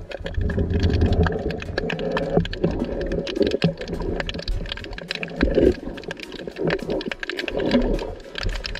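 Underwater camera audio: muffled churning water with dense, irregular crackling clicks.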